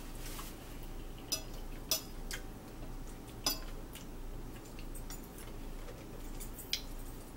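A metal fork clinking and scraping on a plate as food is cut, giving a handful of short sharp clinks over a low room hum.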